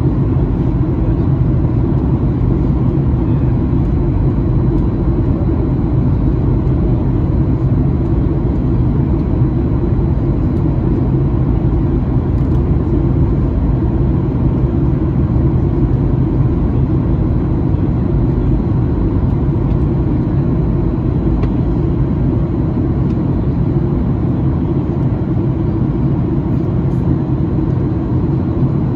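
Steady cabin noise of a Boeing 737-900ER in descent: an even, unchanging rumble of its CFM56-7B engines and the airflow, with a faint steady high tone above it.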